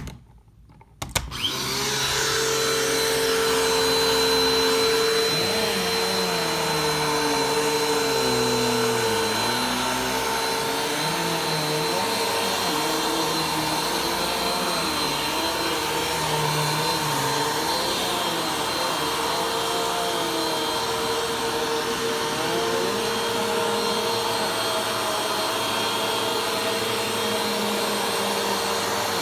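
Vacuum cleaner switched on about a second in, its motor quickly spinning up to full speed, then running steadily while it is pushed slowly across the floor, its lower tones dipping and rising as it moves.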